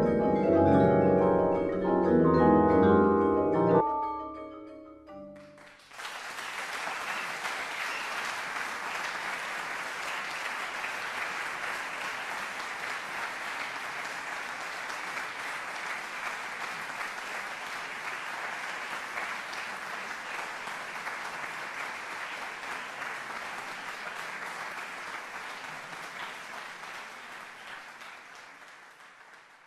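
A marimba ensemble plays its closing notes, which stop about four seconds in and ring away. A couple of seconds later an audience applauds steadily, the applause fading out near the end.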